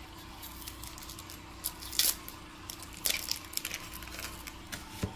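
Outer skin being peeled off a red onion by hand with a knife: soft crackling and tearing, with a sharper rip about two seconds in and a run of crackles about three seconds in. A low steady hum sits underneath.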